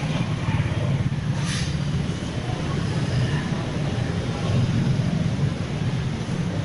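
Steady rumble of passing road traffic, with a brief hiss about a second and a half in.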